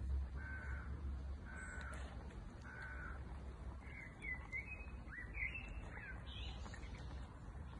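A bird calling: four short, even calls about a second apart, then a run of higher calls that rise and fall in pitch about four seconds in.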